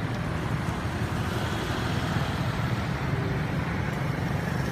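Steady low rumble of motor vehicles.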